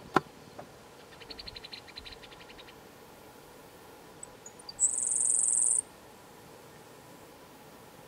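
Grasshopper sparrow singing: a few thin high introductory notes followed by a single high, insect-like buzz lasting about a second. Near the start there is a sharp click, and soon after a rapid run of lower ticking notes.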